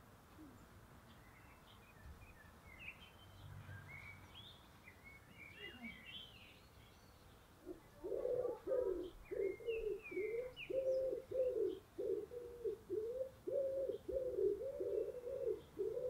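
Small songbirds chirping and twittering in the first half. From about halfway on, a bird's low cooing call repeats about twice a second and becomes the loudest sound.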